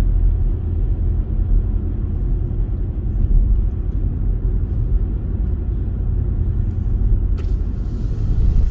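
Steady low rumble of a car driving on an open road, heard from inside the cabin: tyre and engine noise, with a brief click near the end.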